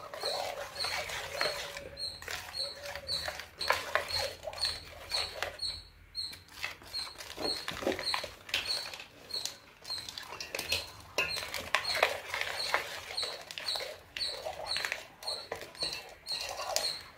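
A spoon stirring and scraping in a pan as herbal powder is mixed into thick jaggery syrup for a lehyam, in irregular scrapes and knocks. A faint, regular high ticking runs about twice a second behind it.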